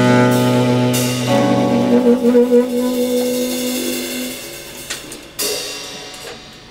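Live jazz on saxophone, acoustic guitar and drums, closing a tune. A long held chord gives way to a single wavering held note. Then two cymbal crashes about half a second apart ring out and die away.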